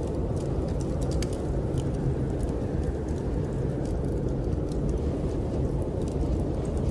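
Steady low rumble of snowstorm wind, with a wood fire crackling in irregular small pops on top.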